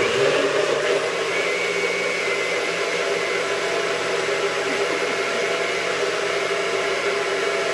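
NutriBullet blender switching on abruptly and running steadily at full speed, its motor whirring as it blends a smoothie of fruit, ginger and coconut milk.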